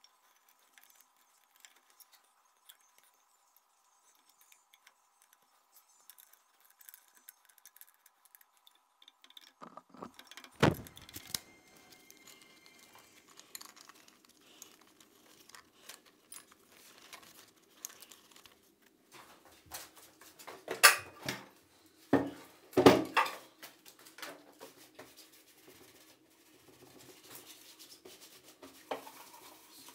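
A faint steady hum at first, then irregular clicks, rattles and knocks of hands handling metal machine parts while rubber V-belts are fitted onto a milling machine's stepped spindle pulleys. The loudest knocks come in a short cluster about two-thirds of the way through.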